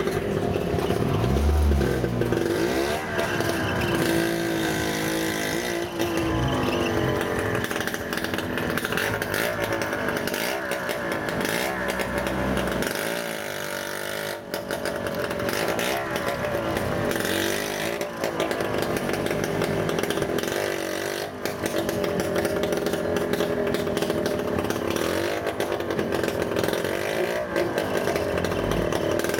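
Auto-rickshaw engine running as the tuk-tuk is driven, a buzzy small-engine note that rises and falls in pitch with the throttle.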